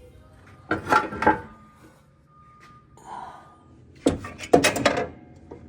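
Sharp clicks and knocks of tools and metal parts being handled during repair work: a short group about a second in, then a louder, quicker run of clanks near the end.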